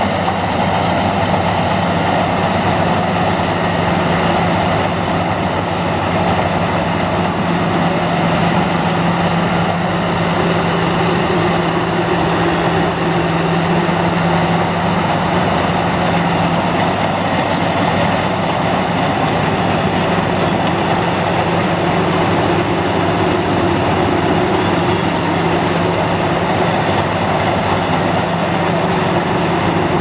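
Crown Sumo rice combine harvester running steadily while it cuts standing rice, its engine and machinery making a continuous loud drone with a steady low hum.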